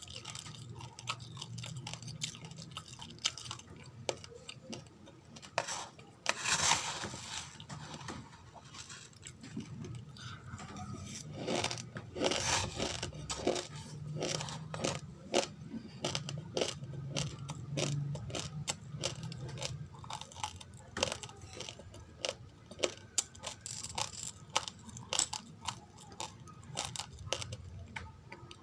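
Raw, uncooked rice grains being crunched and chewed close to the microphone: a dense run of small sharp cracks, with louder bursts of crunching now and then, over a steady low hum.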